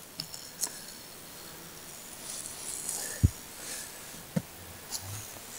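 Quiet handling of a beehive being closed up: light rustling of cloth and a few small clicks, with two soft thumps about three and four seconds in, as the canvas sheet and a wool blanket are laid back over the frames.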